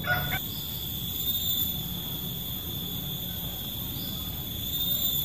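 Steady high-pitched drone of insects, such as crickets, chirring continuously over low outdoor background noise. A brief pitched sound lasting about a quarter of a second comes at the very start.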